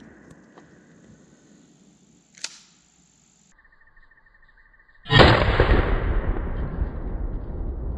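A 12-gauge shotgun fires a rifled slug about five seconds in: a sharp blast followed by a long rolling echo that fades slowly. Before it, the echo of an earlier blast dies away, and a single short crack is heard about two and a half seconds in.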